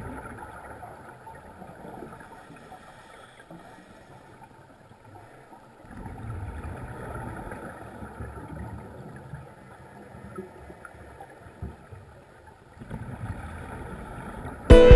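Muffled underwater recording of scuba divers breathing through vintage double-hose regulators: the exhaled breath bubbles out in a rush three times, about six to seven seconds apart, with a quieter hiss between breaths. Music cuts in at the very end.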